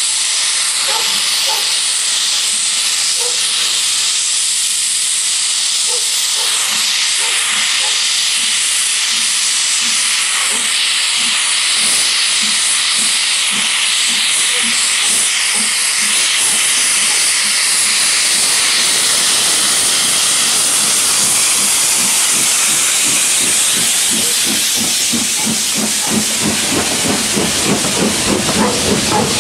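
Three-cylinder LMS Jubilee 4-6-0 steam locomotive starting away with its cylinder drain cocks open, a loud steady hiss of steam throughout. Regular exhaust and wheel beats can be heard under it, growing stronger and quicker near the end as the tender and coaches roll past.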